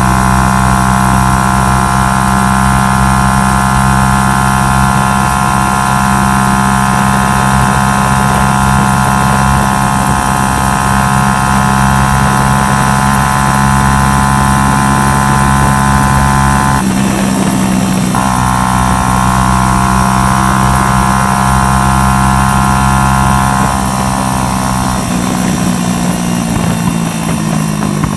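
A 125cc motorcycle engine running at steady, high revs under way. About two-thirds of the way in there is a brief break and a jump in pitch, like a gear change, and near the end the revs fall away as it slows.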